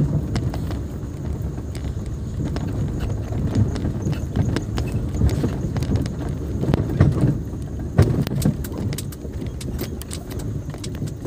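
A car driving over a rough dirt and gravel track, heard from inside the cabin: a low rumble broken by many sharp knocks and rattles as it jolts over ruts and stones.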